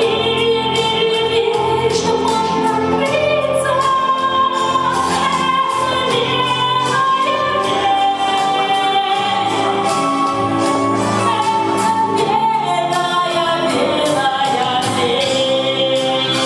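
A woman singing into a handheld microphone over backing music with a steady beat, holding long notes.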